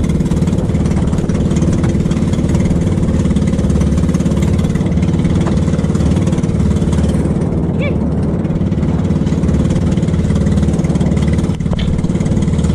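Small engine of a wooden outrigger fishing boat (bangka) running steadily under way, over wind and water noise from the choppy sea.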